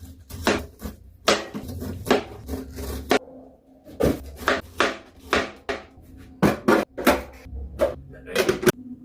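Containers, jars and packages being knocked and set down on refrigerator shelves, a busy run of short clatters and thuds while the fridge is being sorted and restocked.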